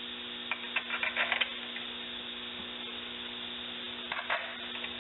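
A few clusters of light clicks and clinks from small metal transmission parts being handled, the first about half a second in and another near four seconds, over a steady electrical hum.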